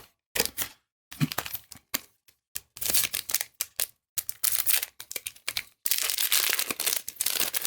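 A foil Magic: The Gathering set booster wrapper being crinkled and torn open by hand: irregular crackling, with a longer stretch of crinkling near the end.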